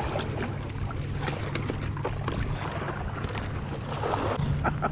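Footsteps scrambling and scraping over shoreline rocks and loose gravel, with a cluster of sharper crunches near the end, over the steady low drone of boat engines out on the water.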